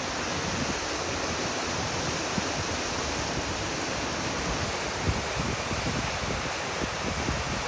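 Waterfall rushing with a steady, even noise of falling water, with a few low wind buffets on the microphone in the second half.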